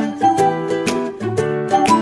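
Background music: an upbeat instrumental tune with a steady beat.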